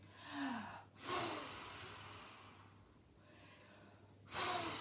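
A woman blowing hard through her mouth to imitate a strong wind: a short voiced whoo, then two long breathy blows, about a second in and near the end, each fading away.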